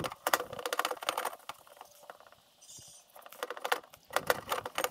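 Rapid light clicking and scraping of handwork on a spot-welded sheet-metal heater-box piece as seam sealer is smoothed out with lacquer thinner. It comes in two spells, one at the start and one from about three seconds in, with a brief hiss between them.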